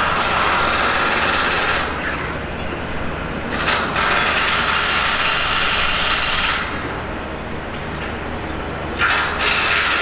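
Heavy construction machinery working: a steady low engine hum, with a harsher whirring mechanical noise that cuts in and out abruptly three times.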